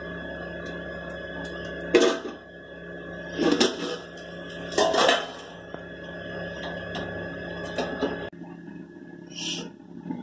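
A steady mechanical hum with three loud knocks, about two, three and a half and five seconds in. The hum cuts off suddenly about eight seconds in.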